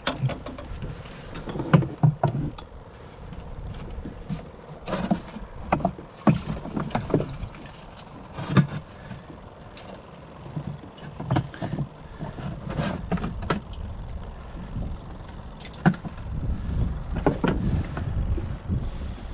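Gear being handled on a plastic kayak: irregular knocks and clunks as the lid of a live-bait bucket is opened and a bait fish is dipped out with a small hand net, over a low rumble.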